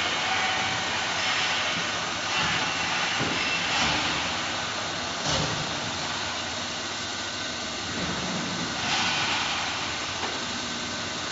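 CNC arch-bending machine for PVC/uPVC window profiles running: a steady mechanical whir and hiss, with brief louder swells of noise about 1, 2.5, 4, 5.5 and 9 seconds in.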